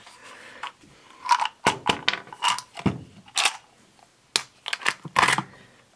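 Small clear plastic case of screwdriver bits being handled: a string of sharp plastic clicks and small metal rattles, about eight or nine, spread unevenly over several seconds.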